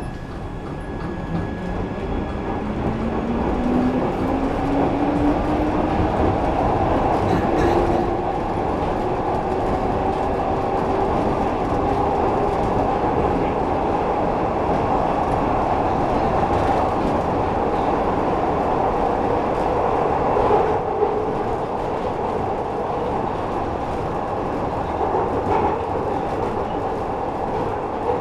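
Glasgow Subway train pulling away and gathering speed: its motor whine rises steadily in pitch over the first ten seconds or so, then fades into a steady running rumble and rattle of the car on the track.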